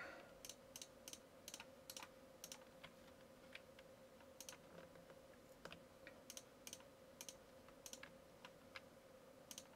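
Faint computer mouse clicks at irregular spacing, about two a second, each one placing a point of a path being drawn on a map. A faint steady hum runs underneath.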